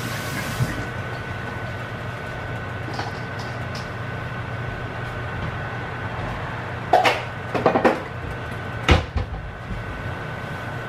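Kitchen range hood fan running steadily, a low hum with a thin whine over it. A quick clatter of knocks comes about seven seconds in, with a single louder knock near nine seconds.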